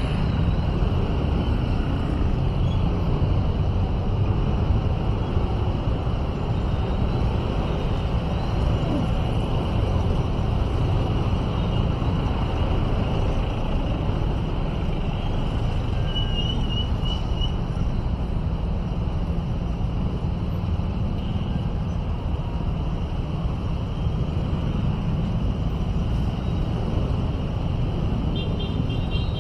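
Steady low rumble of a motorcycle engine and road noise while riding through slow, congested city traffic, with other vehicles running close by. Short high chirping beeps come twice, around the middle and near the end.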